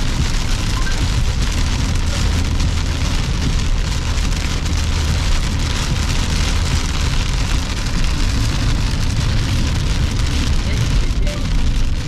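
Heavy rain beating on a moving car's windscreen and roof, heard from inside the cabin. Tyres hiss on the flooded road over a steady low rumble.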